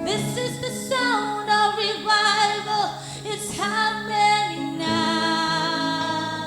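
Music: a singing voice carrying a slow melody over sustained chords, settling into a long held note about five seconds in.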